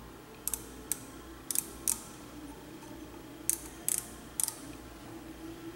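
Outside micrometer's ratchet thimble clicking as it is turned to bring the spindle down onto a crankshaft main bearing journal: sharp light clicks, a few in quick succession from about half a second in, then another group after a pause of about a second and a half.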